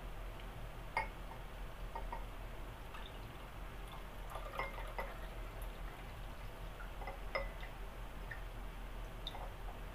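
Muddy water pouring slowly from one drinking glass into another, decanted off soil settled at the bottom, with a few light clicks over a faint steady low hum.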